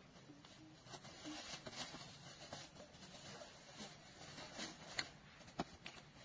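Faint soft pats and taps of hands working and shaping bread dough, with a few sharper clicks near the end.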